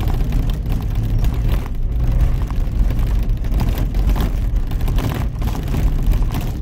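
Caterpillar 289 skid steer's diesel engine running steadily, low and loud, with some irregular clatter over it.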